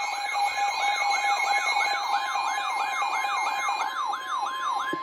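Emergency alert tone: an electronic siren-like sweep rising and falling about three times a second over steady held tones, cutting off near the end.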